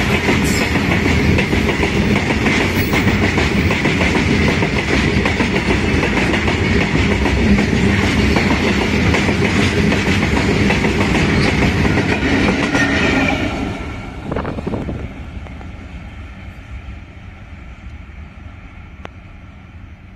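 Open-top steel freight wagons of a goods train rolling past close by: a loud, steady rumble and clatter of wheels on the rails. About 13 seconds in it drops away sharply, leaving a much fainter, fading rumble.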